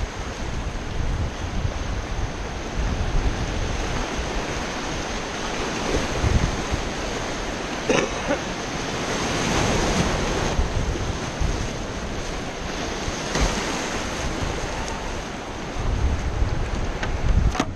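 River whitewater rushing and splashing around a kayak, with wind buffeting the microphone. A sharp knock about eight seconds in is followed by a louder splash as a wave breaks over the bow.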